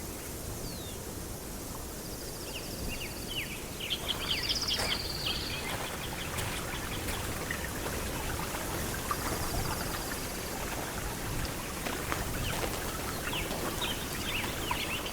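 Forest soundscape: a stream babbling steadily under birdsong, with bursts of short chirps and high trills about two to five seconds in and again near the end.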